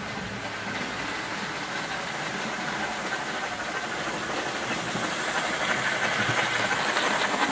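Model steam locomotive pulling passenger cars on a layout: its running gear and wheels running on the track with a steady hiss-like chuff, growing gradually louder as the train comes closer. It sounds like it is labouring.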